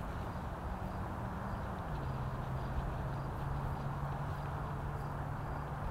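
Steady outdoor background noise with a low hum that drops slightly in pitch about two seconds in.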